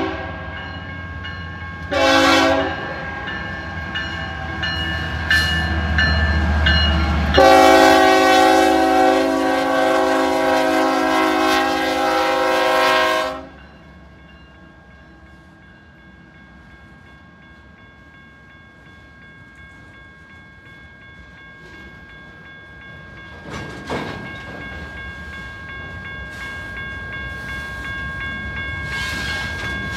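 BNSF diesel freight locomotives' multi-chime air horn sounding a short blast, then a long blast of about six seconds, with the low rumble of the locomotives as they pass. The horn then stops, leaving the quieter, slowly building rumble of the freight cars rolling by, with one sharp knock partway through.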